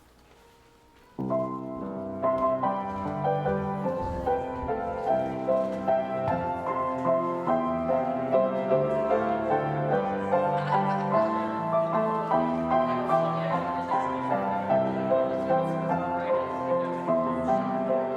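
Keyboard music, most likely piano, starting abruptly about a second in and continuing with a steady pulse of chords: the postlude closing a church service.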